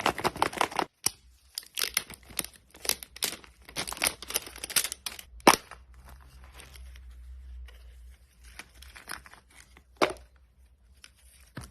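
Parcel packaging being torn and crinkled open by hand. A dense run of ripping and crackling fills about the first five and a half seconds, then it turns to softer rustling with a couple of sharp clicks.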